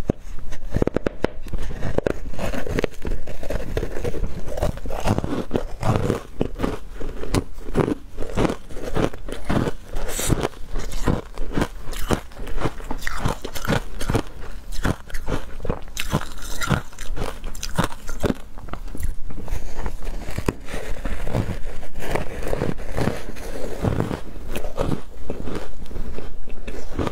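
Biting and chewing a block of ice coated in matcha powder: a dense, continuous run of crisp crunches as pieces break off between the teeth.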